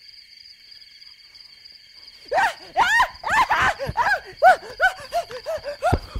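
Steady high chirring of insects, then from about two seconds in a rapid series of short, high whooping cries, each rising and falling in pitch, several a second.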